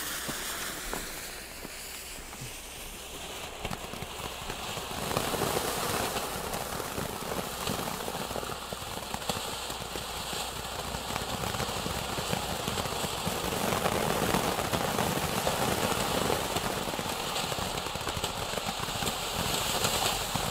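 Fuse fizzing, then a Fire Fantasy 'Quattro' ground fountain firework spraying sparks with a steady hiss and crackle that swells about five seconds in.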